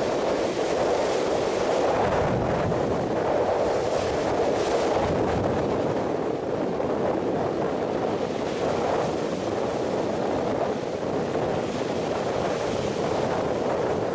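Surf breaking and washing up a pebble beach, a steady rush of noise, with wind buffeting the microphone.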